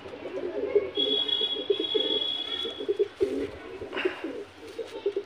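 Domestic pigeons cooing, a continuous run of low pulsing coos.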